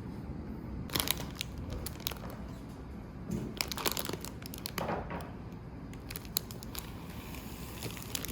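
Crinkly wrapping material being handled and crumpled, rustling in irregular short bursts with a few light clicks.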